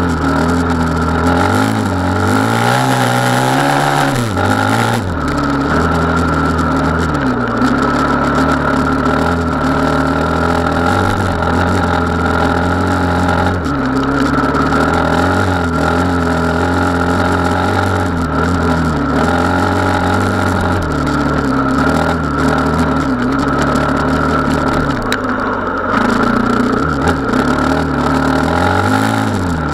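Gas Gas Wild HP 450's engine heard onboard while riding, its revs rising and falling again and again as the throttle is opened and closed, with wind and track noise underneath.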